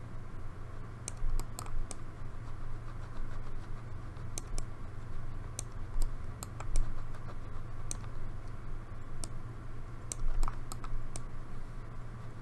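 About a dozen sharp, irregular clicks of a computer mouse and keyboard in use, over a steady low hum.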